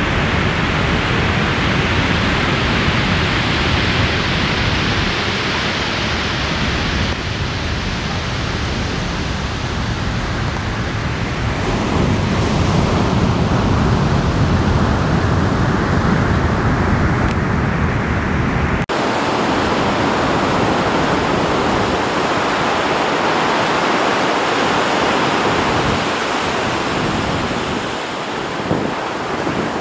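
Ocean surf breaking and washing as a steady roar. A low wind rumble on the microphone in the first part cuts off abruptly about two-thirds of the way through, leaving a brighter hiss of surf.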